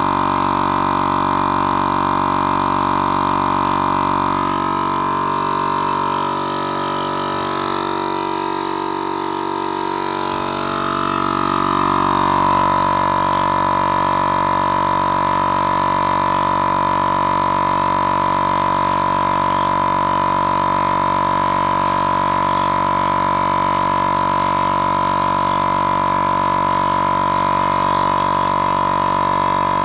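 Small portable air compressor running with a steady buzzing drone, pumping up air pressure for a pneumatic launcher. About five seconds in, its sound dips and wavers for several seconds, then settles back to a steady, slightly louder drone.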